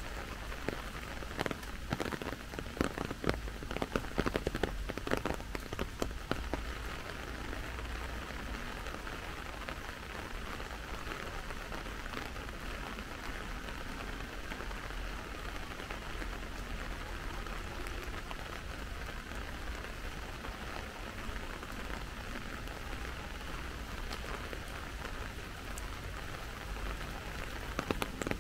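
Steady rain falling, with a flurry of sharp ticks through the first several seconds before it settles into an even hiss.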